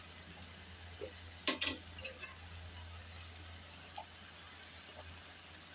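Faint steady sizzle of shredded cabbage and potatoes frying in a kadai, with a low hum underneath. A sharp double knock comes about a second and a half in, the loudest sound, with a few light ticks here and there.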